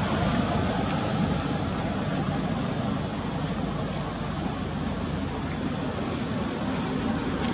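Steady outdoor background noise: a low rumble with a high, continuous hiss-like drone that dips briefly about a second and a half in and again near five and a half seconds in. No monkey calls are heard.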